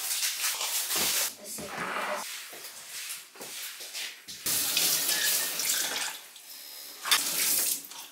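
Kitchen tap running into a stainless steel sink, starting and stopping several times, with water splashing as hands are rinsed under it.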